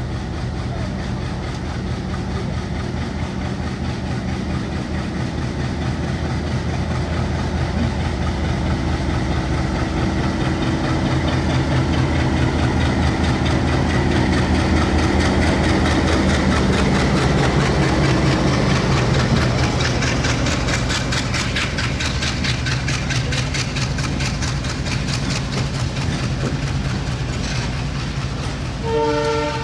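Bangladesh Railway diesel locomotive hauling an express train past a station platform: its engine hum grows louder as it approaches and passes close by, then the passenger coaches' wheels clatter over the rail joints in a fast, steady rhythm. A brief pitched tone sounds near the end.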